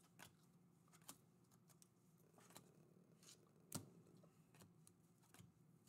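Faint, scattered clicks and light slides of glossy Panini Donruss Elite basketball cards being moved one at a time through a stack in the hands, over a faint low hum. The sharpest click comes a little past halfway.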